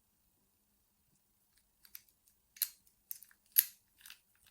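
A handful of short, sharp clicks of a laminated padlock and its key being handled. They begin about two seconds in, after a near-silent start, and come roughly half a second to a second apart.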